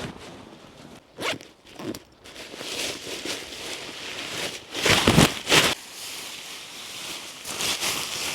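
A zipper being pulled in a series of short rasping strokes: two quick ones early, longer pulls after, the loudest around the middle, and another near the end.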